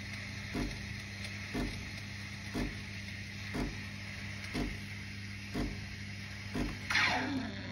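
DeLonghi Dedica EC685 steam wand hissing steadily into a pitcher of milk, frothing it for latte art, over a low hum and a soft thud from the machine about once a second. About seven seconds in, the hiss sweeps down in pitch as the steam knob is turned off.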